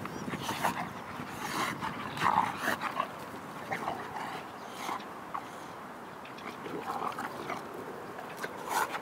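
A boxer and a ginger dog play-fighting, making short vocal sounds in irregular bursts, loudest about two and a half seconds in, with a quieter stretch just past the middle.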